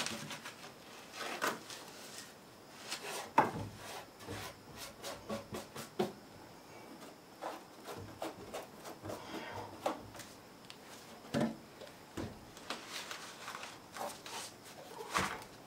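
Lumber being handled and worked into place against a concrete-block foundation: irregular wooden knocks, scrapes and rubbing, with the sharpest knock about three and a half seconds in.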